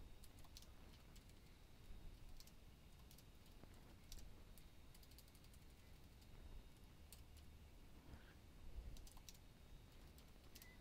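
Faint typing on a computer keyboard: irregular single keystrokes.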